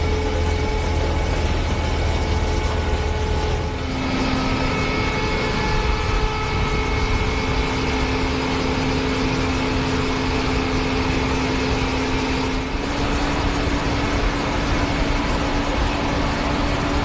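Tractor engine running steadily while working a potato harvester, with the machinery's din underneath; its tone shifts abruptly twice.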